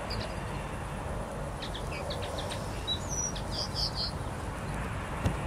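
A small songbird chirping: a quick run of short, high chirps for a couple of seconds, over a steady low outdoor rumble. A single sharp click near the end.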